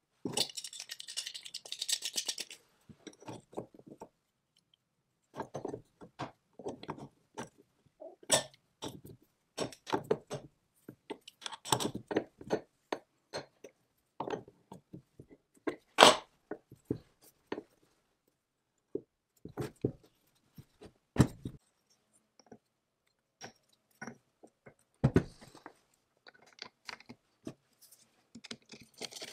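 Small steel and cast-iron parts of an antique lathe headstock being handled and fitted by hand: irregular metal clicks, clinks and knocks, with a scraping rub in the first couple of seconds and the sharpest knock about halfway through.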